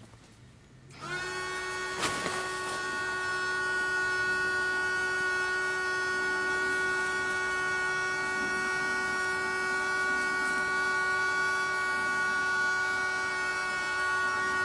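Low-cost battery-powered electric air pump starting up about a second in, then running with a steady, even whine as it inflates an inflatable boat. A single sharp knock sounds about two seconds in.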